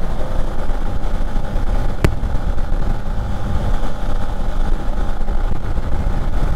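Motorcycle riding along, heard from a helmet-mounted camera: a steady engine drone under heavy wind rush on the microphone, with a single sharp click about two seconds in.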